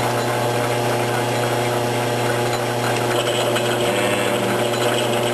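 Logan 922 metal lathe running steadily under power, with a hum from the motor and drive and gear noise from the spinning spindle, set up for single-point thread cutting. About three seconds in the sound takes on a brighter, higher edge.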